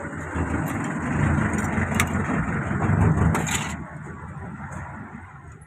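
Arc welding crackling as a patch plate is welded onto a vehicle chassis, dying down about four seconds in.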